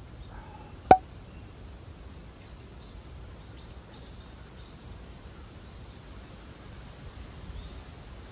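Outdoor ambience: a steady low rumble of background noise, a single sharp click about a second in, and a few short high bird chirps around four seconds in.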